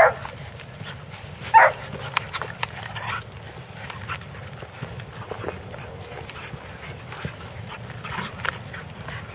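Two young German Shorthaired Pointers tugging and worrying a training dummy: two short barks about a second and a half apart at the start, then steady low growling with the scuffle of paws on the ground.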